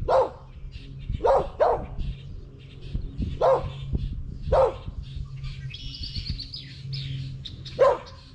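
Dog barking: six single barks at uneven intervals, two of them close together about a second and a half in. A bird trills briefly around six seconds in.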